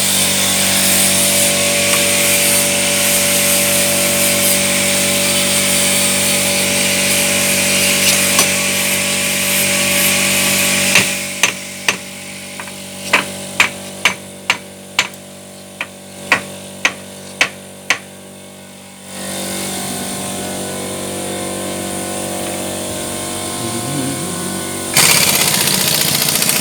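A loud, steady mechanical noise with a machine hum, then about a dozen sharp hammer blows on metal, roughly one a second, during reassembly of an excavator's front axle hub and drive shaft. The hum continues more quietly after the blows, and the loud noise returns near the end.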